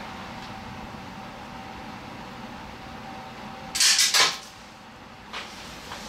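Handling noise as the camera is moved and set in place: a brief clatter of three or four knocks and rubs about four seconds in, with a smaller knock a second later, over a steady background hum.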